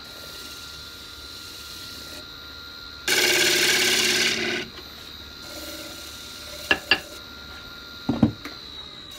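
Benchtop wood lathe running with a faint steady high whine while a bowl gouge cuts into a spinning green cherry-wood plate. The loudest part is one noisy stretch of gouge cutting about three seconds in, lasting about a second and a half. Two sharp clicks and a knock follow, and near the end the motor's whine begins to drop as the lathe winds down.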